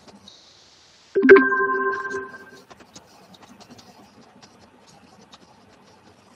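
Google Meet notification chime, a single electronic chord that rings out and fades over about a second, sounding as the meeting recording is stopped. Faint clicks follow.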